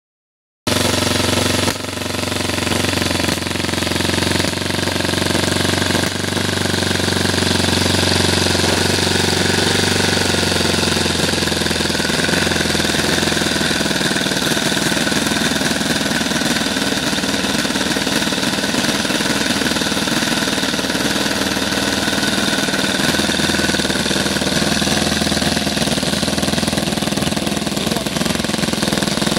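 Hand-built model radial engine running steadily on a test stand, turning a wooden propeller, with a rapid, even firing rattle.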